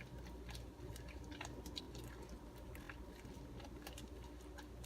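Hands kneading and stretching fluffy slime, giving faint, scattered small crackles and squishes.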